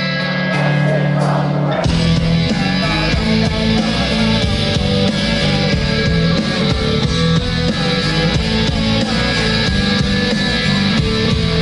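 Live rock band playing an instrumental passage of a song with no vocals. A chord rings out, then the full band comes in with bass and drums about two seconds in and plays on.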